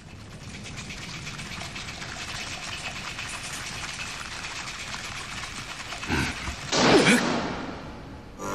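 Anime sound effect of a swarm of kikaichu insects: a steady crackling, skittering rustle, with two louder swells near the end, the second with a falling whoosh.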